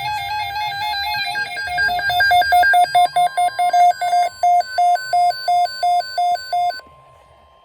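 Several NOAA weather radio receivers sounding their electronic alert alarms for an incoming warning broadcast: a warbling two-pitch beep, then chopped beeps about three a second, cutting off suddenly near the end. A faint steady alert tone with radio hiss remains.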